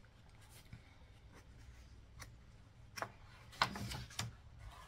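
A sketchbook page being turned by hand: a faint tap about three seconds in, then a short rustle of paper.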